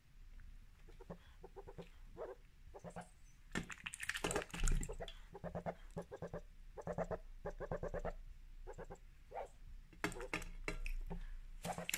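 White domestic duck giving a string of short quacks, about one every half second, while dabbling its bill in a bowl of water. The quacks mix with splashing and bill-slurping, busiest around four seconds in and again near the end.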